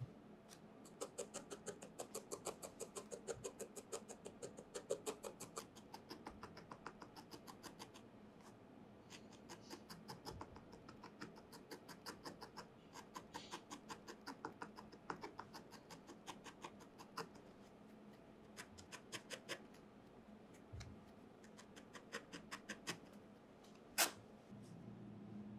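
Felting needle stabbing rapidly and repeatedly into wool over a foam pad, quiet scratchy pokes several a second in short runs with pauses between. A single sharper click near the end.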